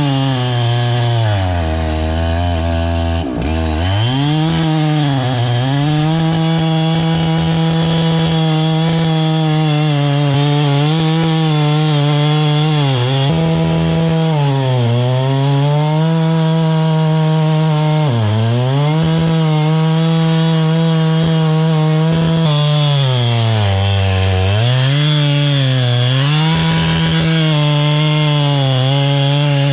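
Large Husqvarna chainsaw cutting through a big log at full throttle. The engine note sags repeatedly as the chain bogs in the wood and climbs back each time, with one deep drop about three seconds in.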